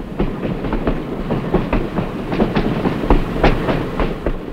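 Streetcar running along street track, its steel wheels clattering over the rail joints in a quick, irregular run of clacks over a steady rumble, louder about three seconds in.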